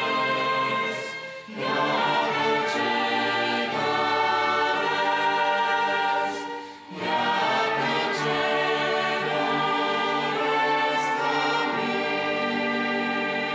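A mixed choir singing long held chords of the hymn's closing "Amin", accompanied by a string orchestra of violins and cellos. The music breaks off briefly twice, about a second and a half in and again about seven seconds in, before each new phrase.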